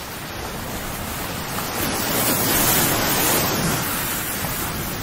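A rushing noise like surf, swelling to its loudest about halfway through: a sound effect accompanying the animated end title.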